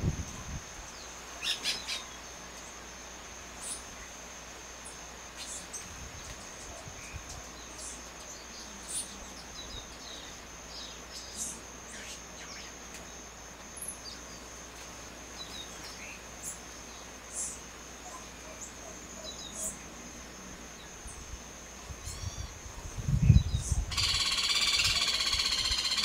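Tropical forest ambience: a steady high-pitched insect drone under scattered short bird chirps, with a few low thumps. About two seconds before the end a loud, harsh buzzing starts and continues.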